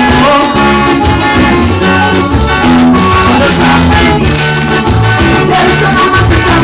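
Upbeat gospel band music with a Latin dance beat, bass and held melodic notes.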